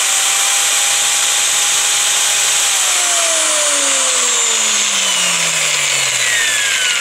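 A 2.2 kW angle grinder running freely at full speed with a steady high whine while a hand tachometer is pressed to its spindle to read its speed. A little under three seconds in it is switched off, and the whine falls steadily in pitch as the grinder coasts down.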